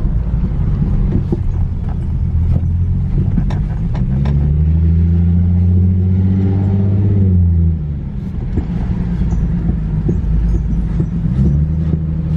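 Infiniti G37S on the move, with a loud, steady low drone from the car and scattered faint clicks. The pitch rises a little about a third of the way in and falls back past the middle. The noise comes from the driver's-side wheel, which the owner takes for a bad wheel bearing.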